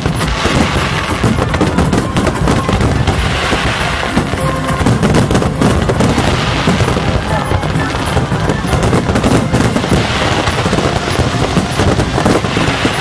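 Fireworks display firing a dense, continuous barrage: many shells launching and bursting in rapid succession, with no break in the bangs.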